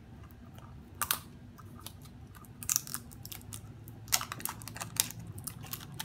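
Plastic toy packaging crinkling and crackling in the hands as it is opened, in irregular sharp bursts, the loudest about a second in and again around the fourth and fifth seconds.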